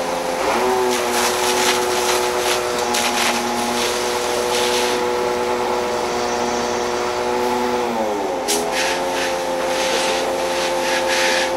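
Engine of a fire-service aerial lift truck running steadily. Its pitch steps up about half a second in, then dips and recovers near eight seconds as the boom is worked. Bursts of hissing noise come and go over it.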